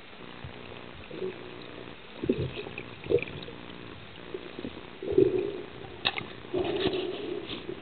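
Water noise in irregular sloshing bursts over a steady low hum, with a sharp click about six seconds in.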